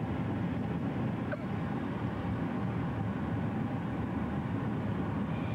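Steady road and engine noise of a car driving at highway speed, heard from inside the car.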